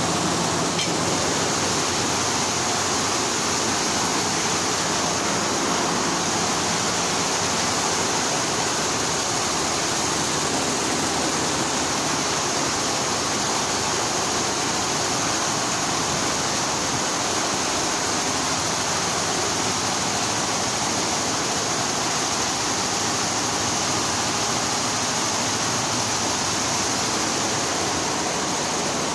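Multi-head computerized embroidery machines running together, a steady, even mechanical noise with no separate strokes standing out.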